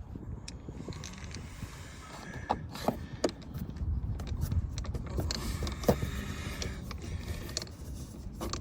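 Scattered light clicks and creaks of a T25 Torx screw being turned by hand with a screwdriver into the plastic clips of a car door's window switch panel.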